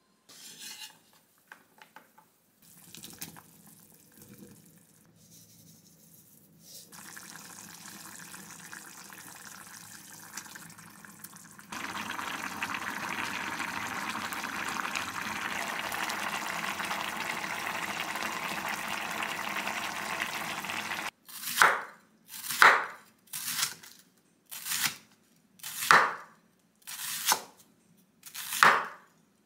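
Spicy tuna and chili stew bubbling steadily in a pot on a gas stove. Then a kitchen knife slices an onion thinly on a wooden cutting board: about seven crisp cuts, roughly one a second, each louder than the simmering.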